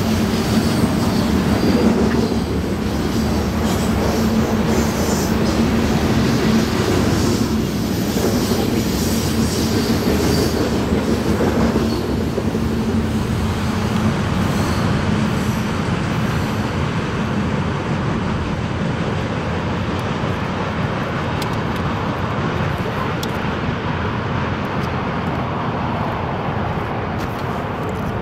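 Covered hopper cars of a freight grain train rolling past, a continuous rumble and clatter of steel wheels on the rails, with a steady hum through the first several seconds. The sound eases slightly toward the end.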